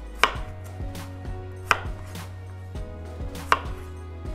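Chef's knife chopping through thick rounds of white radish onto a wooden cutting board: three sharp knocks about a second and a half apart, with lighter taps between them.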